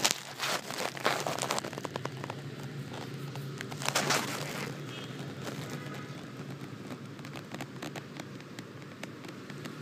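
Crackling, rustling handling noise from a hand-held phone's microphone over a low steady hum, with louder scraping bursts about half a second in and again around four seconds in, and scattered small clicks.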